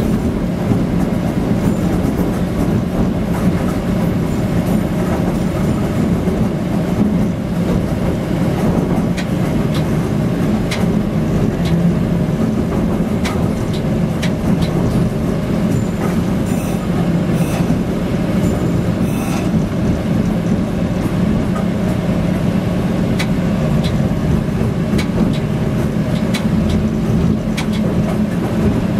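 Diesel engine of a 1948 GE 25-ton locomotive running steadily as the locomotive rolls slowly over rough, overgrown track, heard from inside the cab. Scattered clicks and rattles from the wheels and cab sound above the engine's drone.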